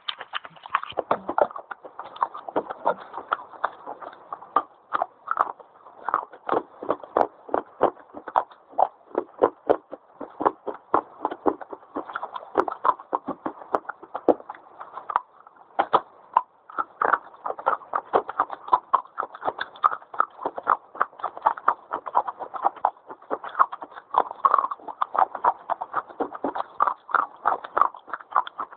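Fast crunching of dry white eating clay being bitten and chewed: a quick, steady run of crisp crunches, several a second.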